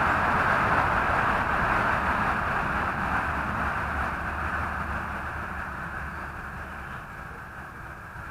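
A steady rushing noise, loudest at the start and fading slowly throughout.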